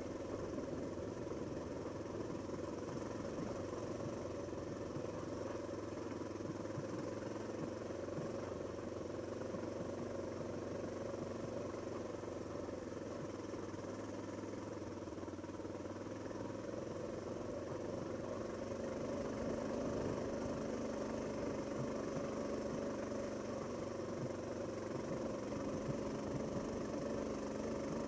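Honda XR650L motorcycle's air-cooled single-cylinder four-stroke engine running steadily on a rocky trail, growing slightly louder about two-thirds of the way in.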